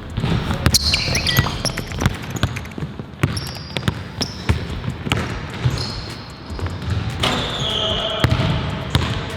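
Basketball being dribbled on a hard court, a run of irregular bounces, with a few short high squeaks during play.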